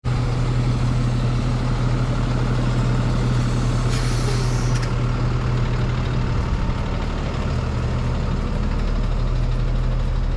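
Diesel engine of an International box truck idling steadily, with a short hiss about four seconds in.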